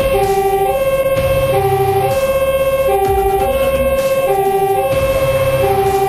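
Fire engine's two-tone siren, heard from inside the truck's cab, alternating evenly between two pitches and completing one high-low cycle about every second and a half. The truck's engine and road noise rumble underneath.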